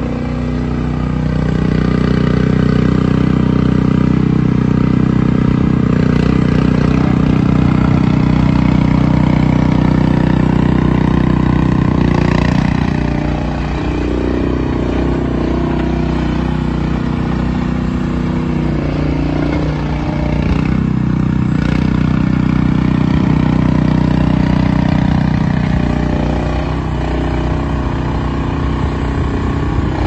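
MachPro MP-S300 tracked mini skid steer loader's engine running as the machine is driven and its bucket raised, the engine note rising and falling with the work and dipping briefly about halfway through and again near the end.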